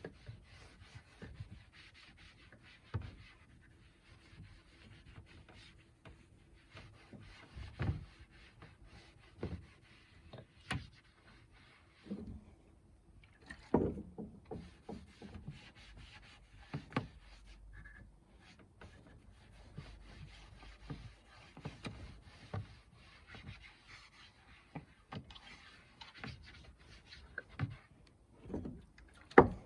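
Scattered light knocks and rubbing of wood at irregular intervals, as of wooden furniture parts being handled.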